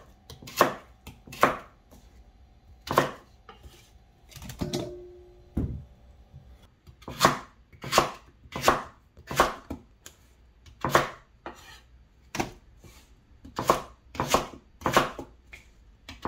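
Kitchen knife cutting through Korean radish and knocking on a wooden cutting board: a string of sharp, unevenly spaced chops, about one a second.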